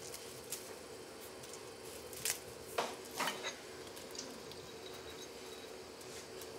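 Quiet kitchen handling: a few light clicks and taps as leaves and juniper berries are added by hand from a small ceramic dish into an enamelled cast-iron pot, over a faint steady hum.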